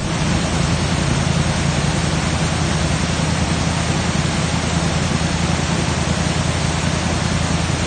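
Waterfall: creek water pouring steadily over a rock ledge, a loud, constant rush of white water.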